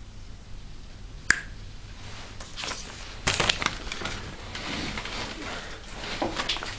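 A single sharp click about a second in, then rustling and light knocks from someone moving and handling things right beside the microphone.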